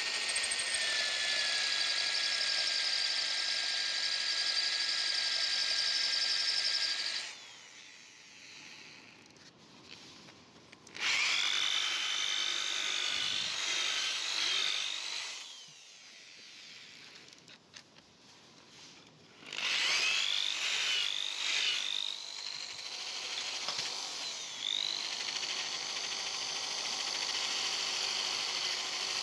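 Electric drill spinning a small rotary bit against a rusty steel adjustable wrench, grinding off the rust: a steady high whine that stops twice for a few seconds and starts again, its pitch dipping and wavering as the bit is pressed onto the metal.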